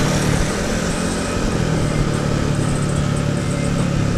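Motorcycle engine running steadily while riding in traffic, a continuous low hum mixed with wind and road noise on the bike-mounted camera.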